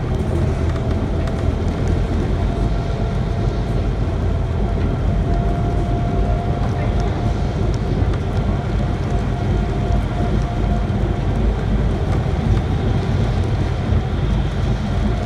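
MAN NL 283 articulated diesel city bus driving, heard from inside the passenger cabin: a steady low rumble of engine and road, with a faint steady whine held over it.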